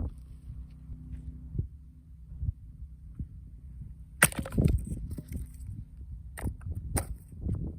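A 5 kg splitting axe striking firewood once about four seconds in, a sharp loud crack, followed by a few smaller knocks as wood pieces clatter, over a low steady rumble.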